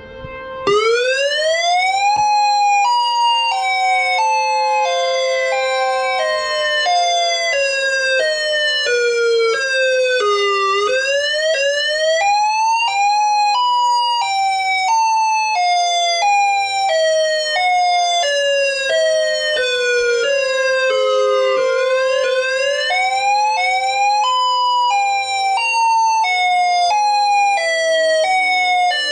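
Simulated outdoor tornado warning sirens sounding together: an Ion Pathfinder electronic siren in alternate wail over the steady alert tone of ASC Tempest-128 and ACA Penetrator-50 sirens. The alternate wail starts with a sharp rise in pitch under a second in, then runs as quick falling sweeps, about one every three-quarters of a second, whose overall pitch wails down and back up about every eleven seconds.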